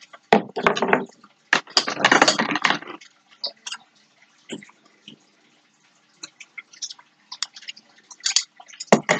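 Rustling and scraping as hands handle thread and scissors close to a laptop's built-in microphone, louder in the first three seconds, then scattered small clicks and taps, over a faint steady hum.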